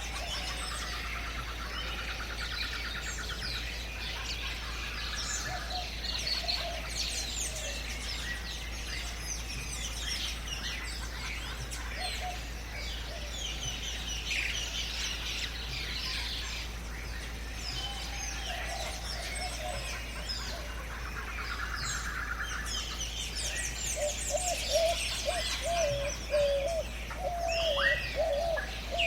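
Jungle ambience: a dense chorus of many birds chirping and calling over one another, with fast trilled rattles and a lower warbling call that grows louder near the end.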